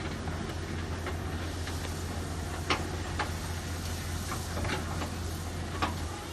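Heavy machine's diesel engine running steadily, with a handful of sharp metallic clanks over it.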